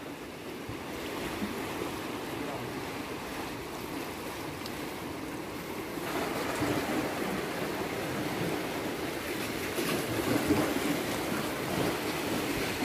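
Sea waves washing against a rocky shore, a steady rush that grows a little louder about halfway through.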